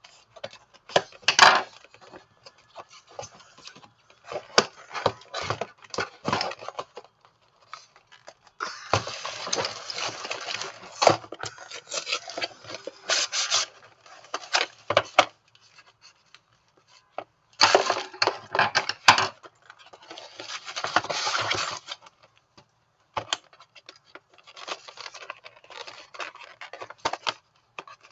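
Packaging and a plastic timer being handled during an unboxing: scattered clicks and knocks, with two long stretches of rustling and scraping.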